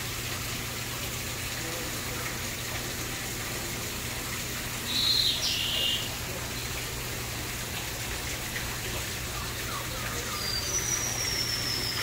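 Steady rush of running water under a low hum, with a bird's short high call about five seconds in and a long high whistled note near the end, from birds in a free-flight aviary.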